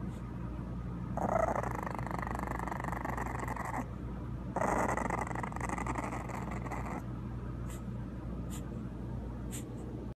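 English bulldog puppy growling: two long growls, each about two and a half seconds, with a short pause between them.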